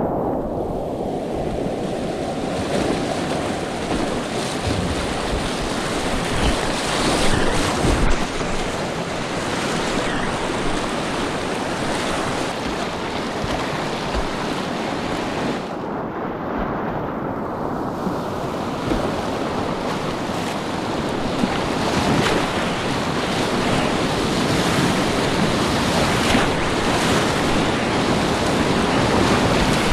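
Whitewater rapids rushing and splashing around a kayak, close up from a camera on board, with waves breaking over the bow. The high hiss of the rush thins briefly a little past halfway.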